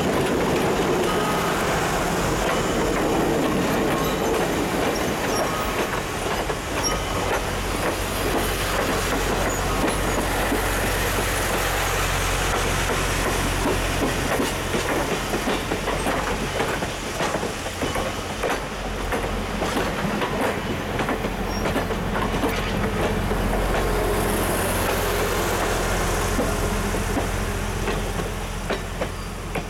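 Vintage passenger cars of a steam-hauled train rolling past at close range, with a steady rumble of steel wheels on rail and repeated clicking as the wheels cross the rail joints. The sound eases off near the end as the last car pulls away.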